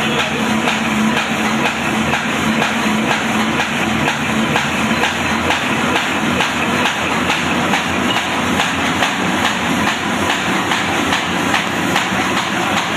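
Paper bag making machine running, a fast, steady mechanical clatter as the kraft paper web feeds through its rollers.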